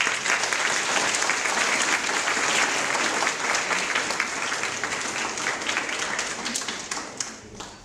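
An audience applauding: many hands clapping together, dying away near the end.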